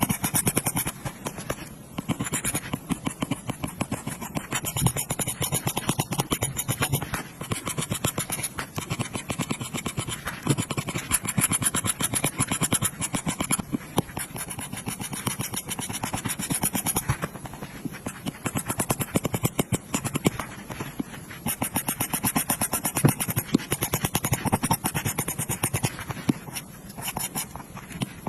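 Apple Pencil's plastic tip tapping and scratching on an iPad's glass screen in quick, continuous strokes, as when filling in colour.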